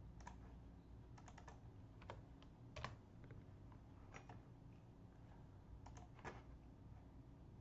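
Faint, irregular clicks of a computer mouse and keys at a desk, about a dozen, some in quick clusters, over a low steady hum.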